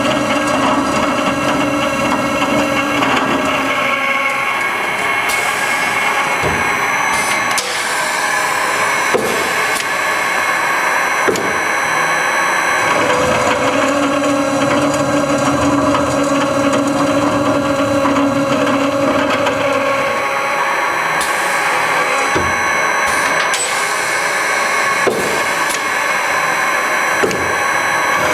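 Scotchman CPL 315 HFA automatic cold saw, with a 180-tooth black oxide blade turning at about 18–20 RPM, cutting 9/16-inch threaded rod in automatic mode. Its steady running tone shifts as each cut begins and ends, repeating about every 15 seconds, with short knocks from the clamping and bar-feed mechanism between cuts.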